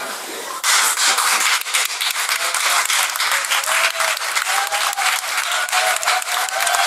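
Crowd of wedding guests applauding, starting suddenly about half a second in and carrying on steadily.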